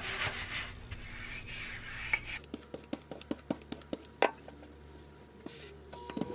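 A hand rubbing flour across a countertop, then a wooden rolling pin rolling out pizza dough on the floured counter. The rolling comes with a run of light clicks and knocks, and a sharper knock about four seconds in.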